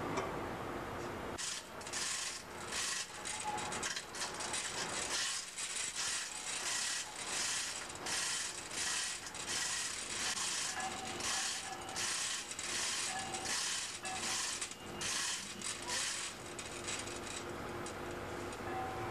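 A hand-worked ratchet mechanism clicking through a long run of even strokes, about two a second, starting about a second and a half in and stopping near the end, over a steady background hum.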